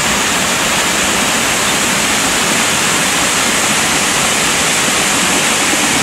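Water cascading over rocks in a waterfall, a steady, unbroken rushing hiss.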